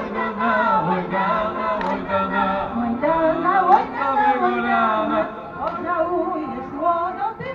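A group of voices, men and women, singing a traditional Polish folk wedding song together.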